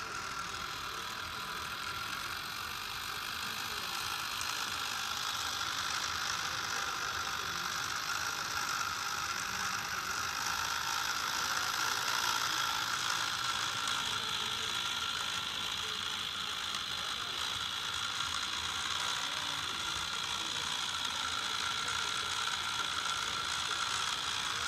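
Small geared electric motor of a model toy tractor whirring steadily, a high gear whine with a rattling buzz.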